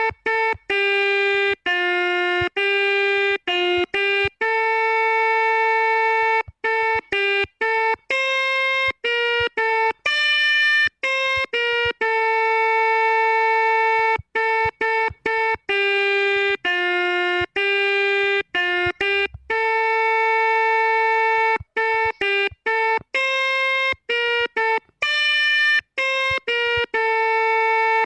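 Telolet multi-tone horn playing a melody note by note: one buzzy horn tone at a time, stepping between pitches with short breaks and a few longer held notes.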